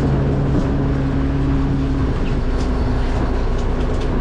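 Fishing boat's engine and hydraulic net hauler running steadily as a trammel net is hauled aboard: a constant low drone with a pitched hum that drops away about two seconds in, and a few light ticks of net and gear.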